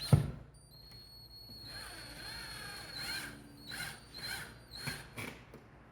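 A sharp knock, then a power drill running in short spurts with a steady whine, driving the mounting screw that clamps an old-work electrical box into the wall.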